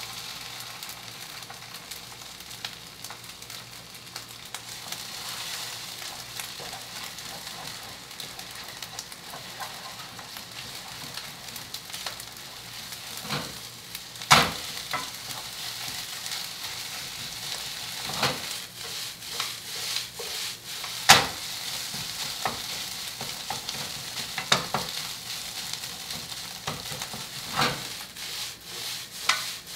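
Egg and fried chicken frying in a hot frying pan with a steady sizzle while being stirred. In the second half, several sharp knocks of a utensil against the pan cut through the sizzle, two of them louder than the rest.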